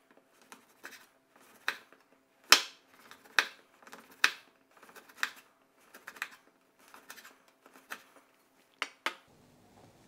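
Chef's knife slicing through dry biltong on a wooden cutting board: a run of short, sharp cuts about one a second, each stroke meeting the board, stopping near the end.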